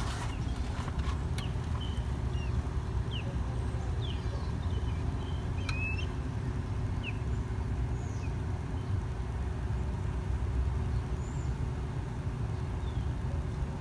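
Steady low rumble of a motor vehicle with a faint steady hum, and a few short, high bird chirps scattered through it.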